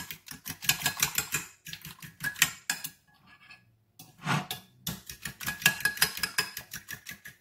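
Metal fork whisking beaten eggs and milk in a ceramic bowl, with rapid clicking of the fork against the bowl. The clicking stops for about a second near the middle, then starts again.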